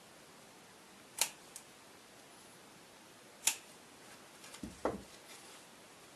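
Two sharp snips of scissor blades closing as buttonholes are cut open in fabric, about a second and three and a half seconds in. Near the end, softer rustling and knocking as the fabric piece is handled.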